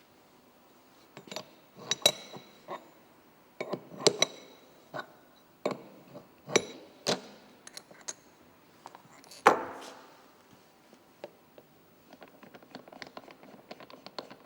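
Metal parts of a bicycle bottom-bracket bearing removal tool clinking and knocking as a MegaExo bearing cup is set into the tool base and the press screw is fitted. The strikes are separate and sharp, the loudest about halfway through, and rapid light ticking sets in near the end as the screw is turned.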